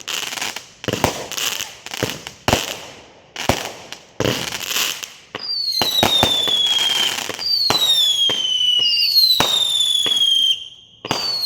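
200-gram consumer fireworks cakes firing: about five seconds of sharp shots roughly every half second to a second with crackle, then a string of long whistles, each falling in pitch, with more shots among them.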